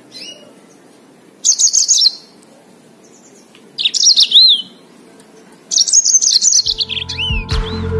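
Yellow-fronted canary (Mozambique canary) singing in three bursts of fast, high trills with down-slurred notes. The third burst is the longest.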